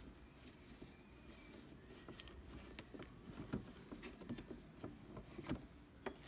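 Faint handling noise: scattered light taps and clicks at an uneven pace over quiet room noise.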